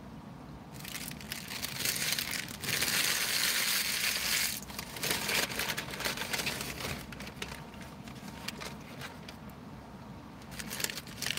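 Paper fast-food packaging rustling and crinkling as it is handled. The rustling starts about a second in, is loudest around three to four seconds in, then breaks into shorter crackles, with a few more near the end.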